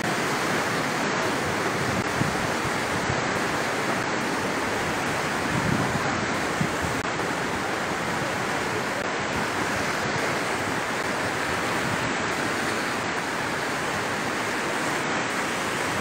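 Flood-swollen river rushing steadily, a continuous even wash of fast, high water.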